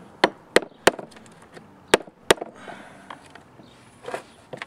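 Hand tool knocking against the wear ring in a Sea-Doo jet pump housing to work the ring loose: five sharp knocks in the first two and a half seconds, then softer scraping and a few lighter knocks near the end.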